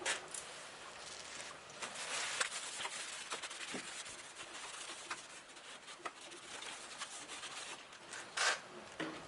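Sheet metal of a truck's radiator support being scuffed with an abrasive to prep it for paint: uneven rubbing and scraping strokes with scattered clicks, and a louder scrape near the end.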